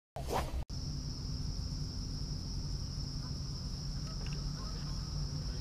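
Steady high-pitched insect chorus, crickets, over a continuous low rumble. It starts abruptly about a second in, right after a short burst of sound.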